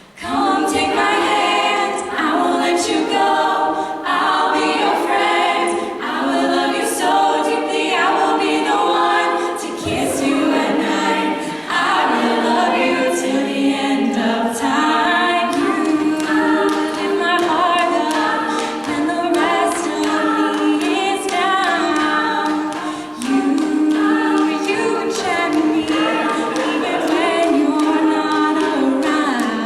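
A women's a cappella group singing in close, layered harmony with no instruments, starting at once and running on without a break.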